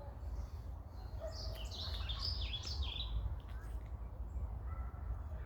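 A bird chirping: a quick run of short falling notes between about one and three seconds in, over a steady low rumble.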